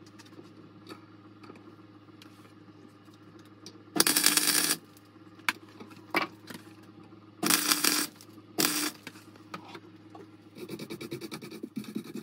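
Gasless MIG welder tacking steel bolts onto a nut-and-spring body: three short bursts of crackling arc, the first and longest about four seconds in, the others about three and four seconds later, over a steady low electrical hum. Near the end, a quick run of rapid scratchy strokes as a wire brush cleans the fresh weld.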